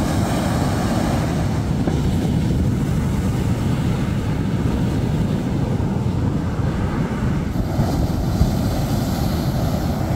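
Sea surf breaking and washing up a sandy beach, a steady rumbling noise with wind buffeting the microphone. The hiss of the waves grows brighter about three quarters of the way through.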